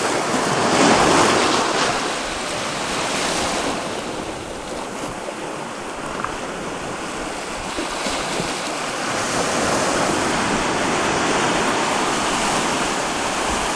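Ocean surf washing onto a beach, a steady rush of water with a wave swelling loudest about a second in.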